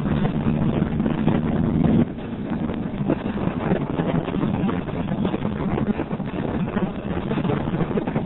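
Motorcycle engine running at road speed under heavy wind rush on the microphone; the engine's steady low drone drops back about two seconds in, leaving mostly wind.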